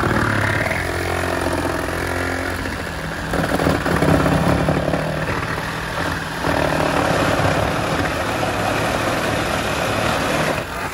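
Cordless reciprocating saw running and cutting down through a car's sheet-metal floor, a continuous grinding buzz that eases briefly about six seconds in.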